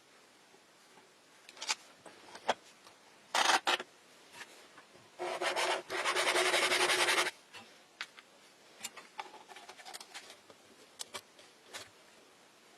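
Handling noises of a small hand build: scattered clicks and two short rasping, rubbing bursts. The longer, louder burst lasts about two seconds and comes near the middle.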